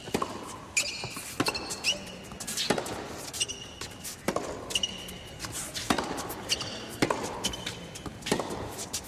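Tennis rally on an indoor hard court: the ball is struck by rackets about every second and a half, with short high shoe squeaks on the court surface between the shots.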